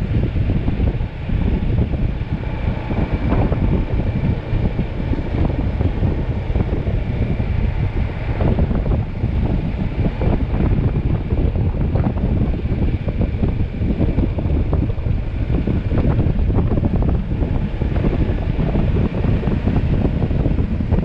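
Heavy wind buffeting the microphone: a steady low rumble with constant flutter and a faint thin whine above it.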